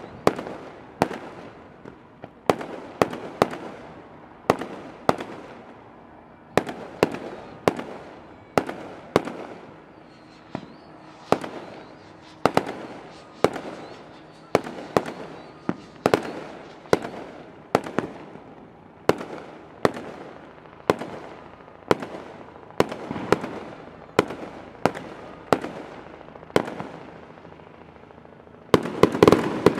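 Fireworks display: a steady string of aerial shell bursts, about one or two bangs a second, each trailing off in an echo, with a denser, louder rush of bursts near the end.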